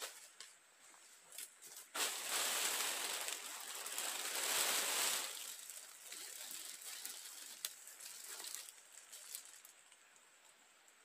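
Loud rustling and crunching of dry leaf litter and brush as a person walks past close by, easing into quieter scattered crunches that fade near the end.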